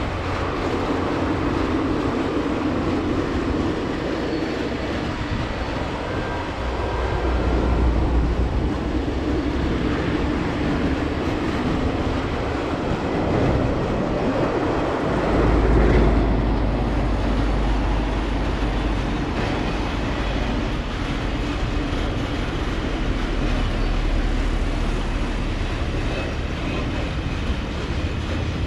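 Train running by on the track: a continuous rumble and rattle of wheels and railcars, swelling louder about eight seconds in and again around sixteen seconds.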